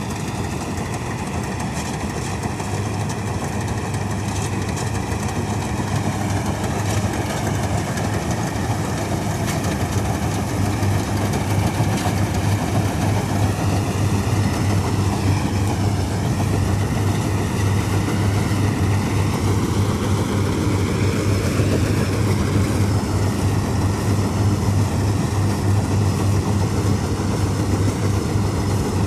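1965 Ködel & Böhm Köla Combi combine harvester running steadily while harvesting: a low engine hum under a higher machinery whine that wavers in pitch, dipping twice in the second half, and grows slightly louder.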